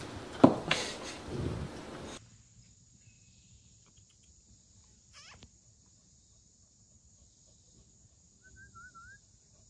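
A puppy playing with a toy bone on a hard floor, with a couple of sharp knocks and scuffles. About two seconds in, this gives way to a faint, steady high insect chorus like crickets, with a few brief bird calls, one a wavy whistle near the end.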